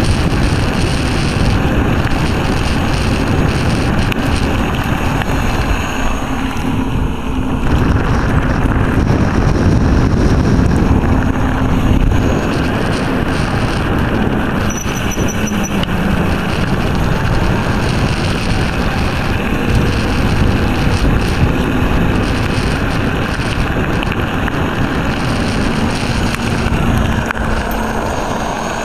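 Silenzio 45 electric scooter riding along a gravel track: wind buffeting the microphone and tyres rumbling on the gravel, with a faint steady hum underneath.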